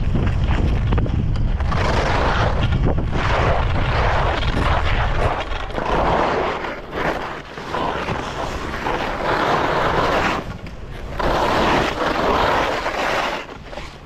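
Skis scraping over hard, icy snow, the hiss rising and falling in surges with each turn. Wind buffets the microphone for the first five seconds or so.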